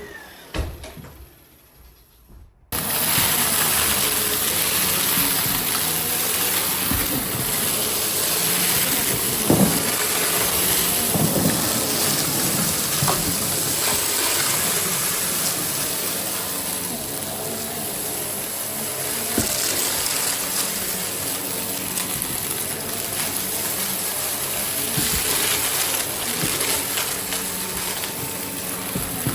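Goodmans TurboMax vacuum cleaner switched on about three seconds in, then running steadily with a high whine, with scattered clicks and rattles over the airflow noise.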